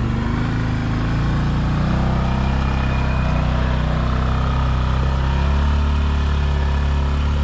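Side-by-side UTV engine running steadily at low speed while crawling along a rutted dirt trail, heard from on board.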